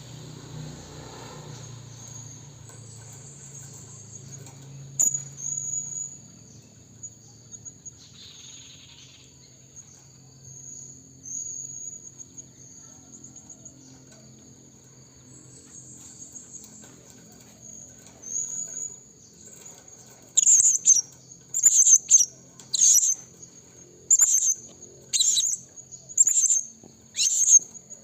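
Blue-crowned hanging parrot (serindit) calling: faint thin twittering at first, then, about two-thirds of the way in, a run of seven loud, shrill, high-pitched calls about one a second.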